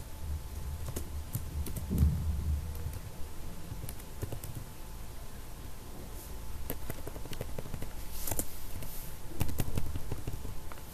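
Computer keyboard being typed on: irregular, scattered key clicks, over a steady low hum.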